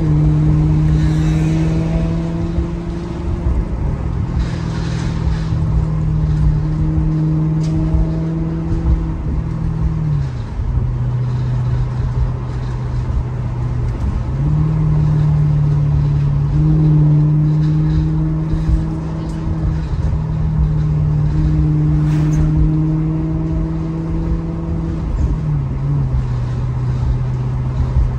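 Maserati GranTurismo's V8 engine droning steadily at light cruise. Its pitch drops about ten seconds in, rises again around fourteen seconds, and shifts a few more times, as the revs change between gears.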